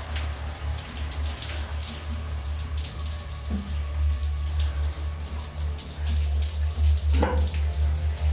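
Shower running: water spraying steadily from an overhead showerhead, with a low rumble underneath.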